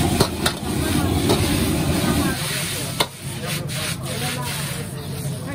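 A steel ladle scraping and stirring rice noodles around a wok, with a light sizzle of frying. Sharp clinks of ladle on wok come twice near the start and once about three seconds in. Underneath is a low roar from the gas wok burner, which eases off about two seconds in.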